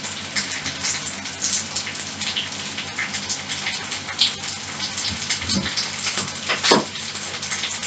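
Tap water running into a stainless-steel kettle with a crackly splashing hiss, with a couple of knocks near the end.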